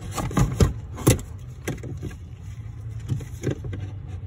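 Razor blade cutting and scraping along the molded plastic cover of a truck's bunk heater core: a run of sharp clicks and scratches, thickest in the first two seconds, over a steady low hum.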